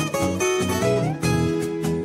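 Intro music on plucked strings: a quick melody with notes changing several times a second.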